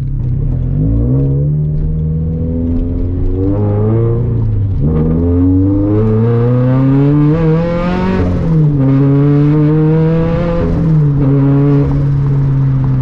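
Turbocharged 2013 Scion FR-S flat-four engine and its resonator-free titanium center-exit exhaust, heard from inside the cabin, pulling under acceleration. The revs climb and fall back several times, with sharp drops about 5 and 11 seconds in as the car is shifted up through the gears.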